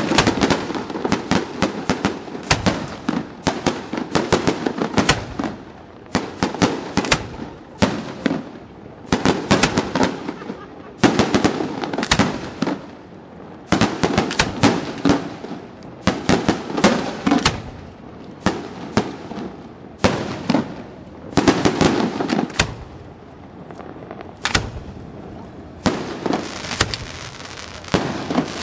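Aerial firework shells bursting at a fireworks display: many sharp bangs in quick succession, coming in volleys with brief lulls between them.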